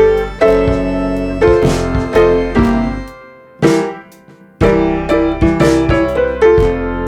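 Background music led by piano chords over a steady low bass, with chords struck about once a second. It briefly drops out about three seconds in, leaving a single struck chord, then resumes.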